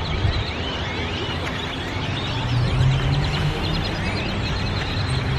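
A large flock of birds calling all at once: a dense, continuous chatter of short chirps, over a low steady hum.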